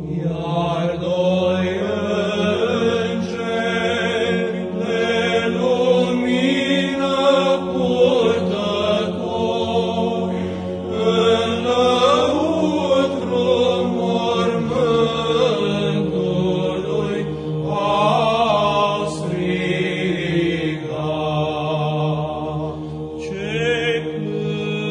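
Orthodox church chant sung in Romanian, voices singing a slow melodic line over a steady held drone note.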